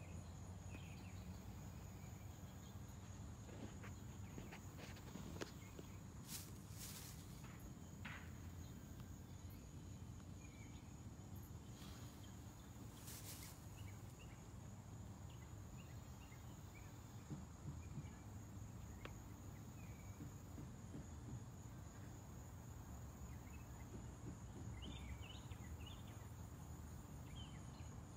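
Faint outdoor ambience: a steady high-pitched insect trill over a low rumble, with a few short chirps and scattered clicks.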